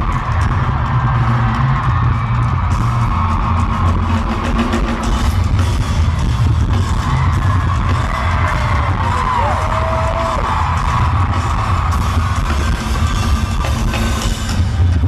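Loud music with heavy bass throughout, with a few gliding pitched notes about halfway through.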